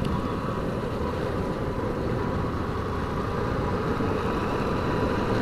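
Motorcycle riding at a steady cruise: engine running with road and wind noise at the handlebar-mounted microphone, holding an even level throughout.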